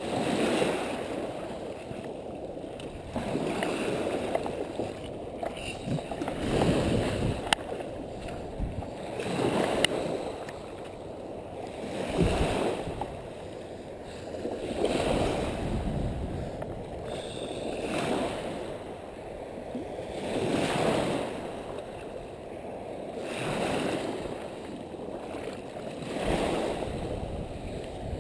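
Small waves washing onto a beach, swelling and fading about every three seconds.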